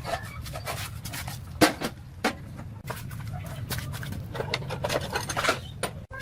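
Irregular clicking, knocking and scraping, like objects being handled, with two sharper knocks about one and a half and two and a half seconds in, over a steady low rumble.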